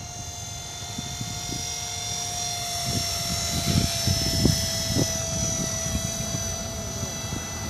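450-size electric RC helicopter in flight: a steady high motor-and-gear whine over rotor noise that swells as it comes closer, loudest about four to five seconds in.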